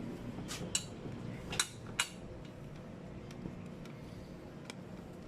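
A few sharp clinks and clicks of hard parts knocking together as the alloy top box's mounting plate and fittings are handled, the loudest two about a second and a half to two seconds in, then fainter ticks, over a low steady hum.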